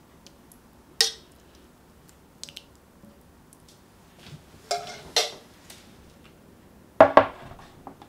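A metal spoon spooning creamy mushroom sauce onto a ceramic plate, with soft wet sauce sounds and sharp clinks of spoon on plate: one about a second in, a couple more around five seconds, and a louder knock near the end.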